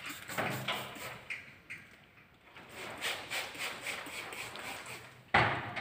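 Irregular taps and scrapes from hand work pressing window tint film onto wet glass from a metal scaffold, with one sharp knock near the end.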